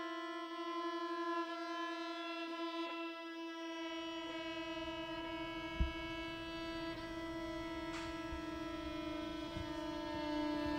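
Film score music: a sustained, droning string chord held steady throughout. A low rumble comes in about four seconds in, and there is one sharp knock about halfway through.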